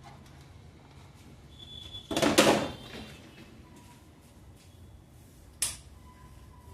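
Handling noises at a repair bench: a loud scraping rustle lasting under a second about two seconds in, then a single sharp click.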